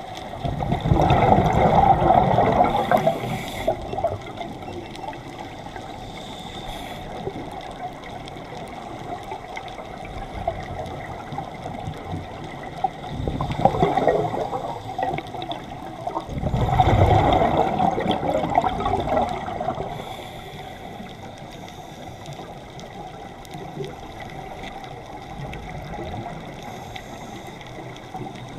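Underwater sound heard through a camera housing: a scuba diver's exhaled bubbles from the regulator, bubbling in three louder bursts of a few seconds each, one near the start and two more a little past the middle, over a steady low watery hiss.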